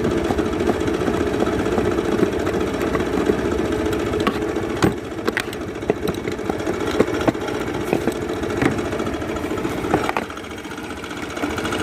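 Mahindra Gusto scooter's single-cylinder four-stroke engine idling with a fast timing-chain rattle, the sign of a slack cam chain or a faulty chain tensioner. A handful of sharp clicks sound over it through the middle.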